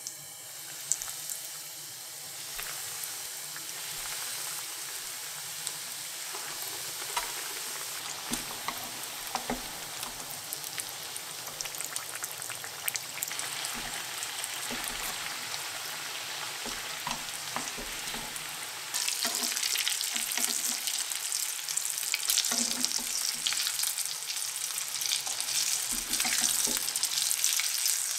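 Potato-crusted cheese hot dogs deep-frying in hot oil in a pan: steady sizzling with scattered crackles and pops, growing louder about two-thirds of the way through.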